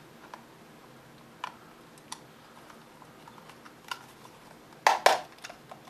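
Plastic battery cover being handled and fitted onto a ThermoPro TP65 wireless thermo-hygrometer's remote transmitter: a few light plastic clicks and taps, then two sharper clicks close together near the end.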